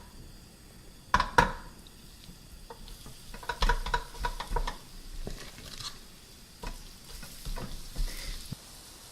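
Kimchi pancake batter frying in a lightly oiled pan with a soft sizzle, while a utensil knocks and scrapes against the pan: two sharp knocks about a second in and a run of clinks around four seconds.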